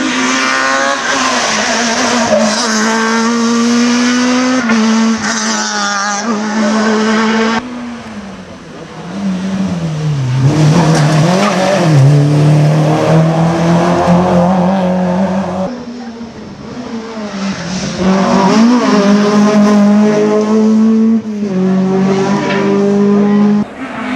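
Rally cars passing at speed one after another, engines revving high and stepping through gear changes. The sound cuts off abruptly between cars, three times.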